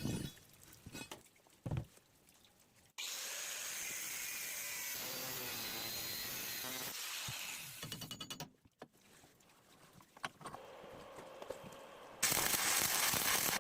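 Workshop tool sounds in quick succession: a few knocks, then a power tool runs steadily for about four seconds and stutters to a stop, followed by scattered clicks and a loud, even hiss near the end.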